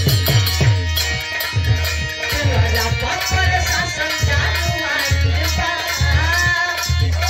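Instrumental passage of Bhojpuri birha folk music: hand drums keep a steady beat under a melody line that comes up about halfway through.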